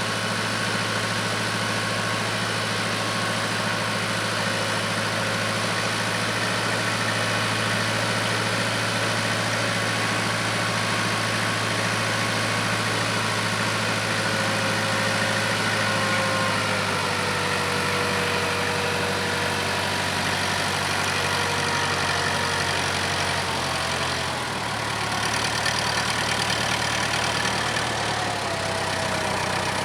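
Case 580K backhoe's diesel engine running steadily, its note dropping a step about halfway through and again near the end, with a fainter whine gliding up and down above it.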